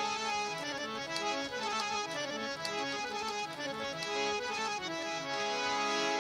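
Harmonium playing an instrumental melodic passage, sustained reedy notes moving from pitch to pitch.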